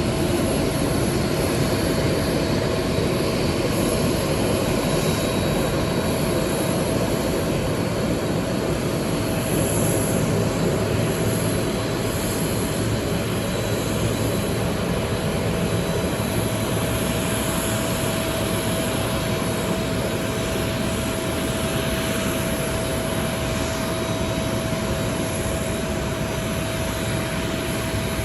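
Boeing 767's jet engines running steadily at idle: an even rush with a constant whining tone.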